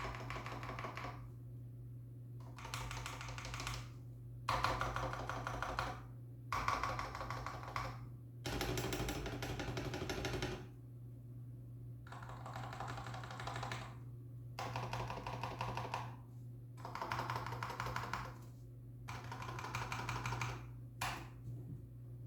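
Typing on a stock, unmodified Womier M68 HE Hall-effect (magnetic-switch) gaming keyboard: about ten short runs of rapid keystrokes with brief pauses between, heard through a camera microphone.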